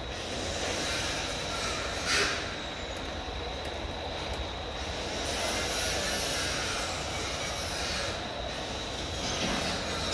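Conveyor-belt rice-cracker fryer running: steady machine noise mixed with the sizzle of cakes frying in hot oil, with a thin steady high whine. A brief louder noise comes about two seconds in.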